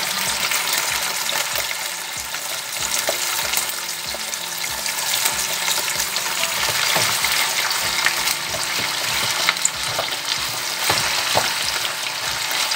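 Chicken pieces and freshly added chopped onions sizzling in hot oil in a cast-iron casserole, a steady frying hiss with many small crackling pops of spattering fat.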